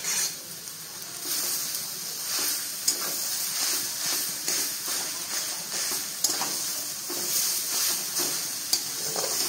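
Metal spatula stirring and scraping a vegetable cutlet filling of grated beetroot, carrot, mashed potato and peas around a kadhai, over a steady sizzle as the mix is roasted until almost done. A few sharp clinks of the spatula against the pan stand out.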